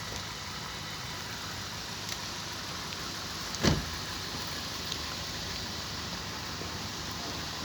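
Steady hiss of rain falling, with one short knock about halfway through.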